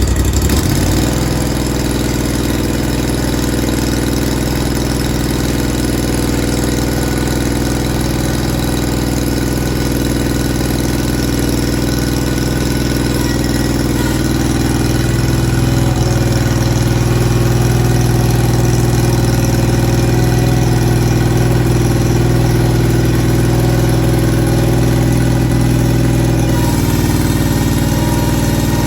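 Steiner garden tractor's engine running steadily, just started after sitting all winter. Its speed drops and settles near the start, picks up slightly about halfway through, and shifts again near the end.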